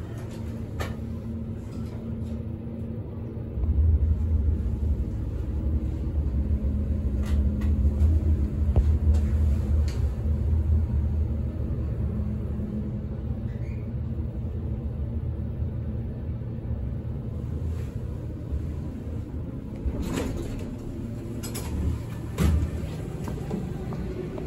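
Elevator car travelling: a low rumble with a steady hum, swelling about four seconds in and easing off after about ten seconds. A few sharp knocks come near the end.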